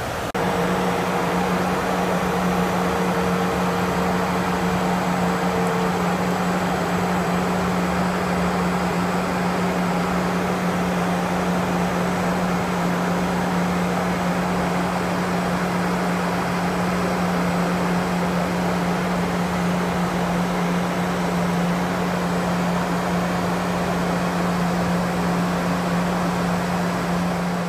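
Steady in-flight drone of a jet aircraft heard from inside: a rushing noise with a strong low hum, and a fainter higher hum that drops out about six seconds in.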